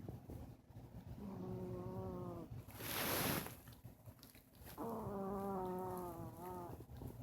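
Chihuahua snoring in her sleep: two long, high, whining snore notes, each lasting a second and a half to two seconds, with a short breathy puff between them.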